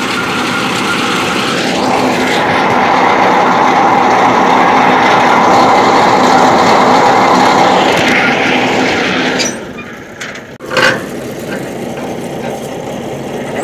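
Truck-mounted borewell rig's engine running steadily under load as it hoists the pump pipe out of the well. The sound drops off after about nine seconds, and a single sharp knock follows near the end.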